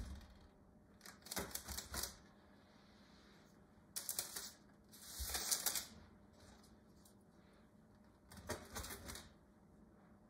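Chef's knife cutting through thin, crisp-baked pizzas on a parchment-lined baking tray: several short bouts of faint crunching and clicking as the blade goes through the crust.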